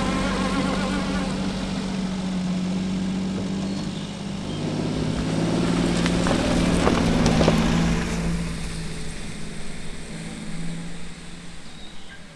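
Small kei light truck engine pulling away, a steady engine note that dips slightly in pitch partway through. About two thirds of the way in it starts to fade as the truck drives off into the distance.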